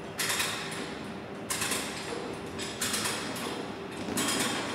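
Strv 103C's folding flotation screen being lowered: a rhythmic scraping, creaking mechanism sound in strokes about every second and a bit, over a faint steady hum.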